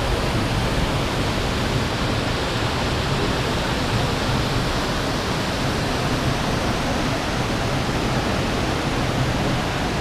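Steady rush of a tall waterfall and the rocky river rapids below it: an even, unbroken noise.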